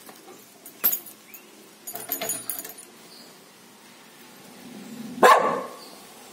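A dog's metal tie-out chain clinks and rattles as the dog moves, then the dog gives one loud bark about five seconds in.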